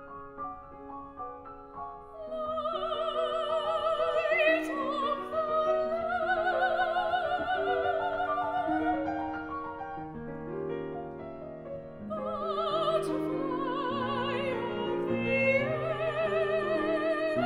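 Classical art song: a soprano sings with wide vibrato over grand piano accompaniment. The piano plays alone at first; the voice enters about two seconds in, drops out briefly after about ten seconds, then comes back in.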